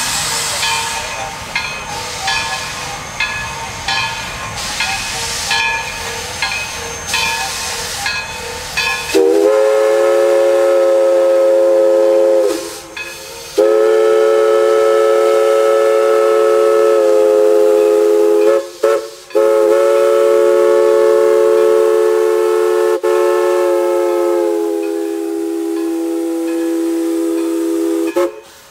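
East Broad Top 2-8-2 Mikado No. 16 steam locomotive working, its exhaust chuffing in a steady rhythm. About nine seconds in, its steam whistle sounds a chord: two long blasts, a short one and a final long one, the pattern of a grade-crossing signal.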